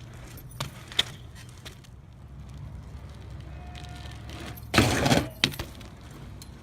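BMX bike being ridden, with a steady low rumble underneath. A sharp click comes about a second in, and a loud, rough half-second impact-and-scrape comes about five seconds in.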